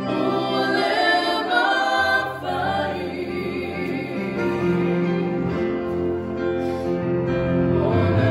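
Church choir singing a slow hymn in long held chords, with a sustained bass note under the voices.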